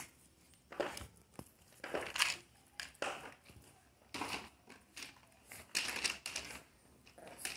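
Irregular scuffling and scraping from a miniature pinscher tussling with a soccer ball: its mouth and paws work at the ball on gritty concrete, in a string of short noisy bursts.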